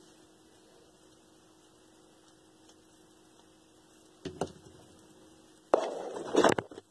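A faint steady hum, then a short knock about four seconds in and a louder burst of rustling and sharp clicks near the end as hands handle the circulator pump's bearing bracket and parts on the workbench.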